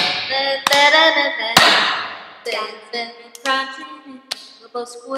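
Teenagers' voices singing unaccompanied and laughing, broken by four sharp hand claps spaced about a second apart.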